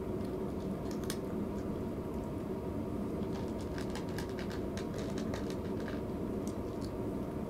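A cat eating from a plastic bowl: irregular small clicks of chewing and of its mouth against the bowl, over a steady low hum.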